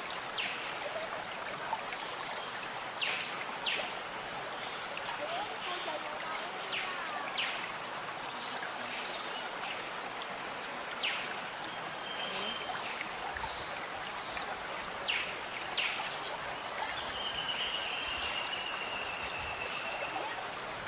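Waterfall water rushing steadily, with short bird chirps over it and a longer high steady note near the end.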